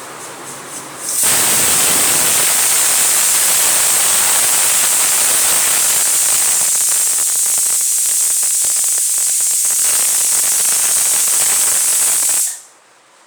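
Pressure cooker blowing its whistle: a loud, steady hiss of steam jetting from the weighted vent valve as the pressure lifts the weight. It rises sharply about a second in over a softer hiss, sputters briefly partway through, and cuts off abruptly near the end.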